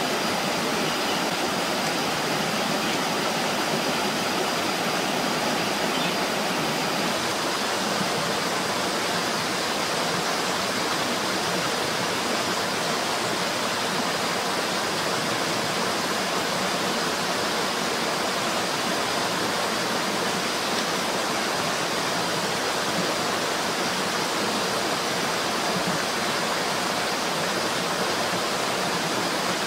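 Steady rush of a stream running over rocks, an even hiss of water that never lets up.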